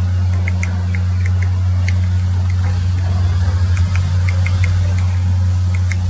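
Yellow-crowned woodpecker pecking at tree bark: light, irregular high ticks, sometimes a few a second, over a loud, steady low hum.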